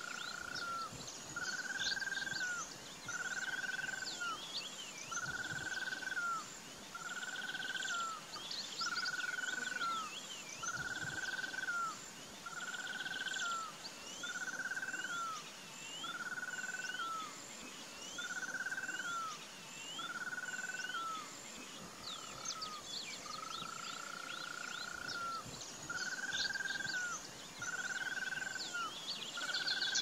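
Marsh wildlife chorus: an animal repeats a short arched call about every second and a half, over a steady high-pitched whine and many small high chirps.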